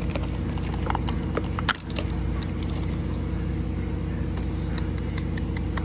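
A steady low mechanical hum with scattered light clicks and taps; the hum dips out briefly a little under two seconds in.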